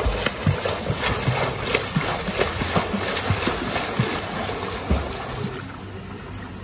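A learner swimmer kicking and stroking in a swimming pool, her feet and arms slapping the water in a quick, irregular run of splashes. The splashing eases off near the end as she slows.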